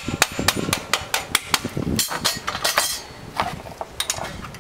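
Metal parts knocking and clicking in a quick, irregular series of sharp strikes, with a short scraping slide about two seconds in, as a motorcycle's rear wheel, spindle and caliper are lined up for refitting.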